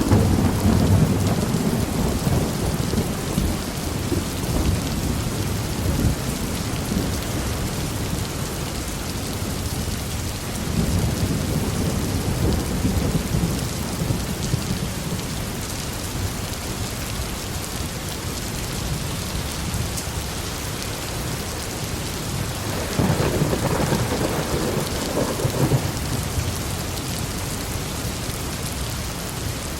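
Steady heavy rain falling on surfaces, with rolling thunder rumbling in at the start, again about a third of the way in, and once more near the end.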